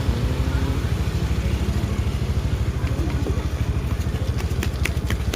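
A vehicle engine running close by with a steady, low, evenly pulsing throb, and a run of sharp clicks near the end; no telolet horn sounds.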